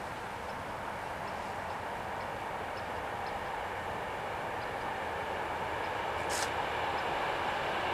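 SNCB MS80 electric train approaching the level crossing, its rumble growing steadily louder, with a short click about six seconds in.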